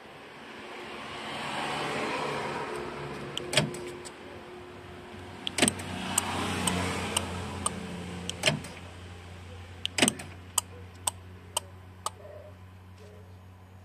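Chevrolet Cobalt's power window motor running twice, each run swelling up and dying away over about three seconds as it drives the door glass, operated through a newly fitted remote window-lift relay. Sharp clicks come between the runs and after them, about one every half second near the end.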